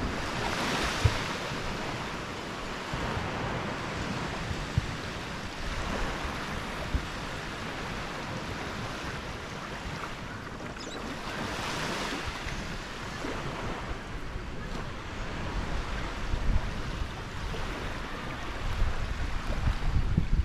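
Small waves breaking gently and washing up on a sandy beach, with stronger washes about a second in and again around twelve seconds. A low rumble builds near the end.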